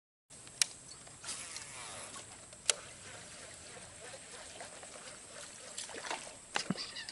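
A faint steady outdoor background, broken by sharp clicks: two loud ones, about half a second and nearly three seconds in, and a few softer ones near the end, with some faint falling tones about a second in.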